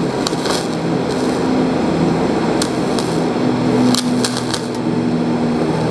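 DC-negative TIG welding arc on aluminum, fed with a flux-coated aluminum stick electrode as filler: a steady buzzing hiss with scattered sharp crackles.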